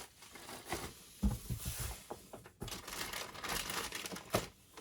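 Crinkling and rustling of product packaging being handled, with a few soft knocks.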